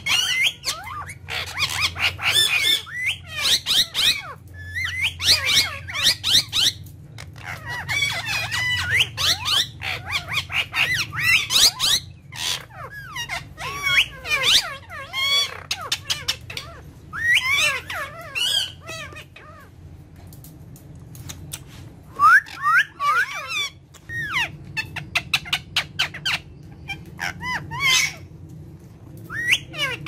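Indian ringneck parakeets chattering and squawking in quick, rapid runs of short calls that rise and fall in pitch. There is a brief lull about two-thirds of the way through before the calls start again.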